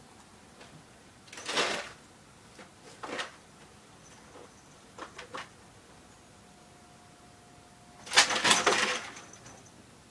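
Pet rabbit doing laps in her cage, making a racket: separate bursts of rattling noise, one about a second and a half in, a short one around three seconds, a few small clicks, and the longest and loudest, about a second, near the end.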